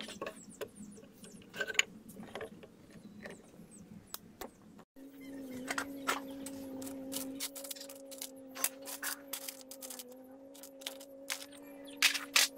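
Small metal screws and washers clinking and tapping as they are picked through by hand on a tabletop, with sharp scattered clicks. From about five seconds in a steady low hum runs underneath.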